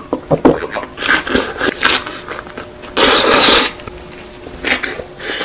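Close-miked eating sounds: wet chewing and mouth smacks on kimchi-wrapped spicy stir-fried noodles. A loud rushing burst of under a second comes about three seconds in.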